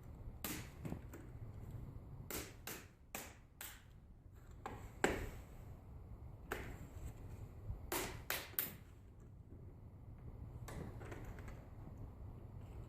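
Plastic snap clips of a Dell Inspiron 15 3521 laptop's screen bezel popping loose as the bezel is pried off: a string of sharp, irregular clicks, the loudest about five seconds in.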